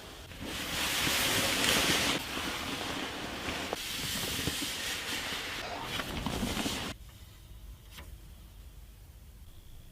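Rubbing and scraping noise of packaging or parts being handled. It stops abruptly about seven seconds in, and a single click follows.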